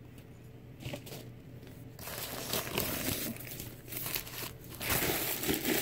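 White paper packaging crinkling and rustling as it is handled, starting about two seconds in and coming and going unevenly, loudest near the end.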